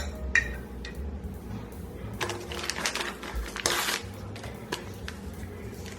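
Kitchen handling noises while seasoning a pork roast: a few sharp clicks and knocks, then two short scraping or rustling sounds, one a little after two seconds and one near four seconds.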